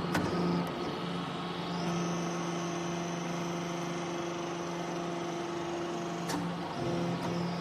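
Horizontal hydraulic metal briquetting baler running, its hydraulic power unit giving a steady hum. A higher whine steps up about two seconds in, and a sharp click comes near the start and another near the end.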